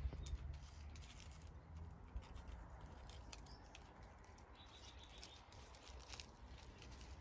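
Faint outdoor ambience: a low steady rumble with scattered soft ticks and rustles.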